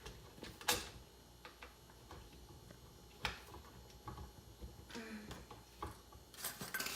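Scattered light clicks and taps from hands handling small parts during dryer cord wiring, a few seconds apart, growing busier near the end.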